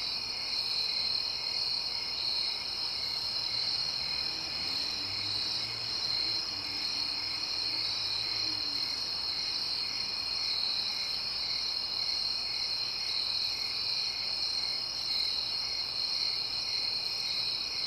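Night insect chorus: crickets trilling steadily and high-pitched, with a lower chirp repeating a little under twice a second.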